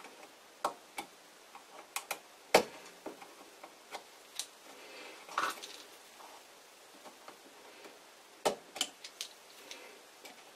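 Small hand tools clicking and tapping against a circuit board and the aluminium heatsink of a frequency converter as the board, stuck down by thermal paste, is prised loose: scattered sharp clicks, the loudest about two and a half seconds in, a brief scrape about five and a half seconds in, and a pair of clicks near the end.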